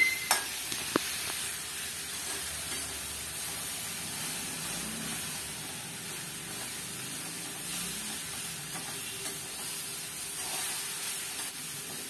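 Horse gram and tender jackfruit stir-fry sizzling in a metal kadai over a raised flame while a perforated metal spoon stirs and scrapes through it, with a couple of sharp clinks of the spoon on the pan in the first second.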